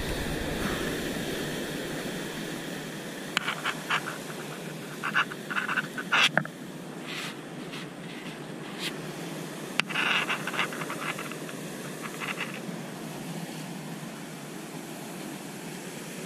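Steady sea surf and wind hiss, with several short bursts of rapid clicking and rattling, at about three and a half seconds in, around five to six seconds, and again at about ten seconds.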